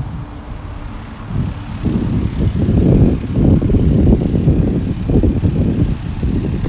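Wind buffeting the microphone: a low, gusting rumble that swells from about two seconds in.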